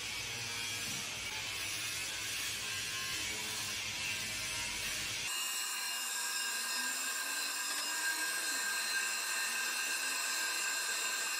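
Mechanical clicking and rattling as a cast pulley is turned by hand on a shaft in a pillow-block bearing. About five seconds in the sound cuts to a drill press boring through a steel plate, a steady high whine of the twist bit cutting metal.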